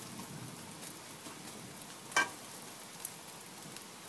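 Egg frying in an F4 Blue Diamond frying pan: a steady low sizzle with scattered small crackles. About two seconds in there is one sharp, ringing metallic clink of the stainless spatula against the pan.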